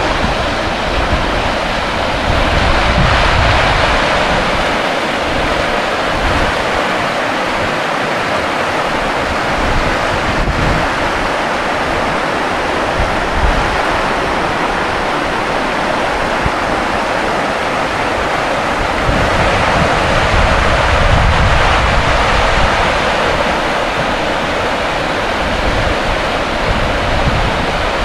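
Steady rush of flowing water, with wind buffeting the microphone as an uneven low rumble.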